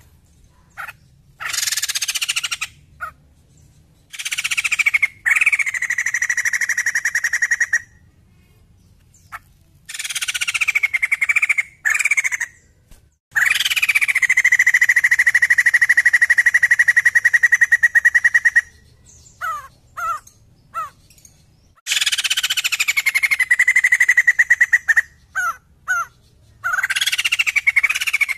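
White-crested laughingthrush calling in loud bouts, each opening with falling notes and settling into a long, steady, fast-rattling note held for several seconds, the longest about halfway through. Short chirps come between the later bouts.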